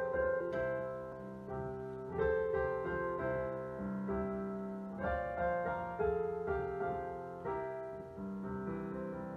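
Piano playing a slow instrumental intro of sustained chords over a bass line, a new chord or note struck about twice a second and left to ring.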